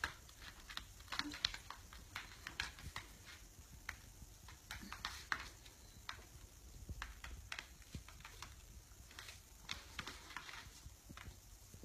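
Irregular light taps and clicks from lambs' hooves on a wooden floor, mixed with the small smacking of a lamb suckling from a bottle.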